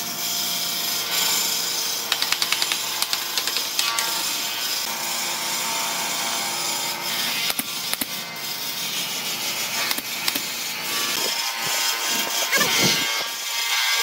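Power tool working wood: a steady noisy whir, with a quick run of clicks about two seconds in.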